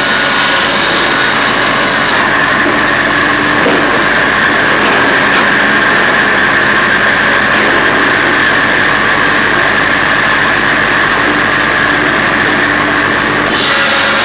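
Japa firewood processor running loudly and steadily, with a constant whine over its drone. A harsher, brighter hiss is stronger for the first couple of seconds and returns near the end, as the machine works the oak log.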